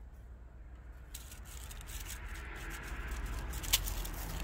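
Dry leaves and grass rustling and crackling as a cat gets up and steps through them close to the microphone, growing louder from about a second in, with one sharp click near the end.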